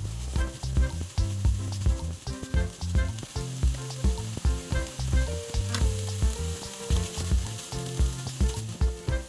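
Tuna ssamjang sizzling as it is stir-fried in a pan, over background music with a steady beat and bass.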